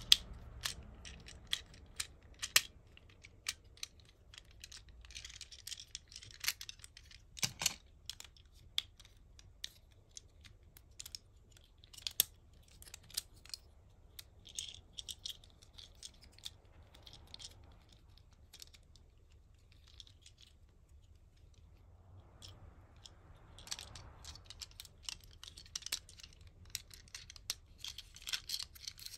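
Joints and panels of a Transformers ambulance toy clicking and snapping as it is folded by hand from vehicle into robot. The clicks are sharp and irregular, with short stretches of plastic parts scraping between them.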